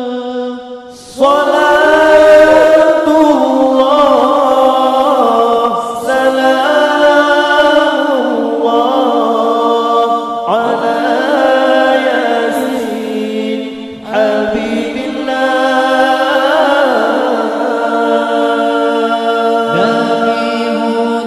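Group of men singing an Islamic qasidah in unison into microphones, with long held notes ornamented by wavering runs. After a brief dip, a loud new phrase begins about a second in, and fresh phrases start again after about ten, fourteen and twenty seconds.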